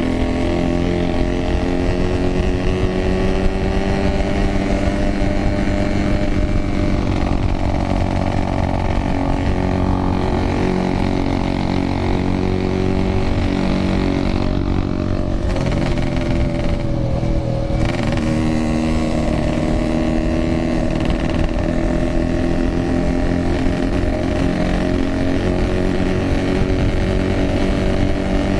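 Yamaha RX King's 135cc two-stroke single-cylinder engine running while riding, its note rising and falling with the throttle and dropping briefly a little past the middle, over a constant low rumble.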